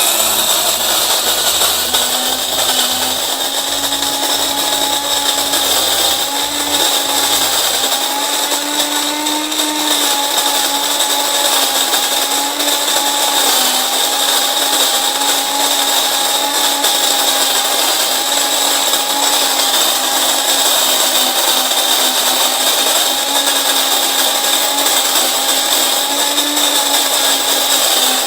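Cuisinart DBM-8AMZ electric burr mill coffee grinder running steadily, its motor whine mixed with the grinding of whole coffee beans on a slightly finer-than-medium setting.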